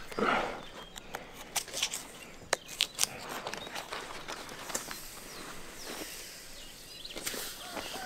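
Bark being cut and peeled from a standing mimosa trunk with a knife: a tearing rasp just after the start, then scattered sharp cracks and crackles of bark splitting, and softer rustling of the bark strips.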